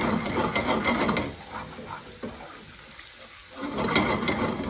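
Long-handled spoon stirring and scraping a thick curry base around an aluminium pan over the heat, in two bouts: one at the start lasting about a second, and another near the end. Between them the base sizzles quietly in the pan.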